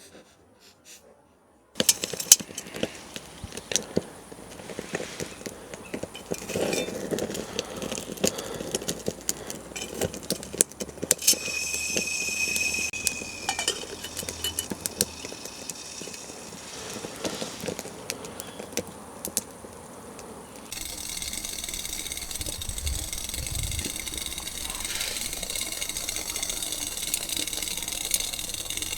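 Camp cooking gear being handled for making tea, with many clinks and knocks. About two-thirds of the way in, a steady hiss starts, as of a camp stove burner lit to heat the water.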